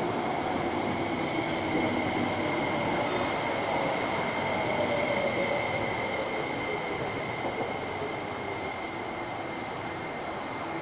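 Eight-car Ma On Shan Line electric train running in along the platform and braking to a stop: a steady high-pitched tone over a rumble, with a lower motor whine falling in pitch as it slows. The sound eases off near the end as the train comes to rest.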